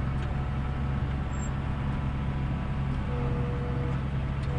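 Tractor engine running steadily at constant speed, a continuous low hum, with a brief faint whine about three seconds in.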